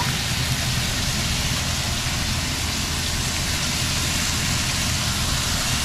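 Slices of pork belly sizzling in a frying pan, a steady hiss with a low hum underneath.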